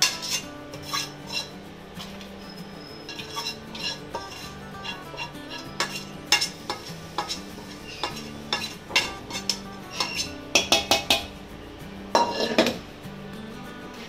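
Metal spoon scraping and knocking against a kadai and a steel plate as roasted date paste is scraped out of the pan: irregular clinks and scrapes, with a quick run of knocks about ten seconds in and a longer scrape just after.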